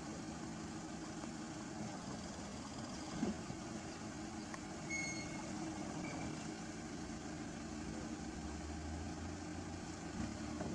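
Heavy machine's engine idling steadily, with a single sharp knock about three seconds in and a brief high tone about five seconds in.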